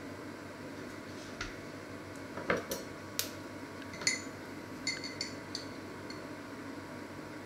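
A scattered run of short clinks and knocks from a table knife and a glass jam jar being handled: a knife set down on a wooden cutting board and the jar opened. The loudest knock comes about two and a half seconds in, then a quick series of bright ringing clinks between about four and five and a half seconds.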